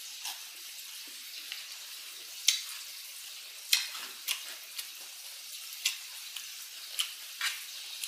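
Close-miked chewing of a chicken Caesar salad: crisp crunches and wet mouth clicks, about seven sharp ones scattered over a steady hiss.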